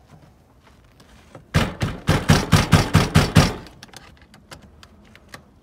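A front door yanked hard by its lever handle, giving about eight rapid bangs over two seconds as it jolts against its lock. The door holds because the lock is in its anti-attack lockdown mode.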